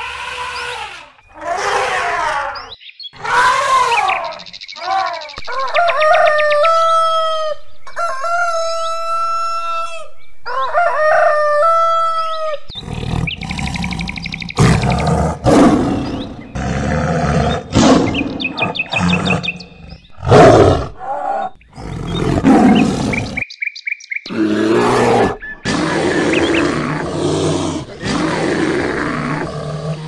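A run of different animal calls. It opens with short, high, falling chirp-like calls, then several long, steady calls held on one pitch. From about halfway on come rough, harsh roars and growls, one after another with short gaps.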